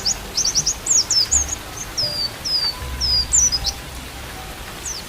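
A white-eye (pleci) singing: quick runs of high, downward-sweeping chirps, then a few slurred falling whistles, stopping a little past halfway. A steady hiss of rain underlies it.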